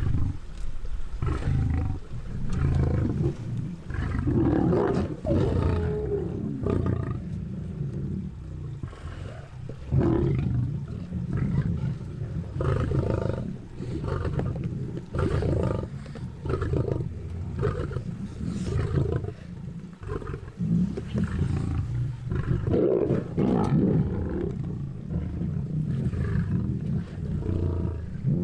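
Lions growling and snarling over a zebra kill while they feed, a near-continuous low rumble that swells and drops irregularly.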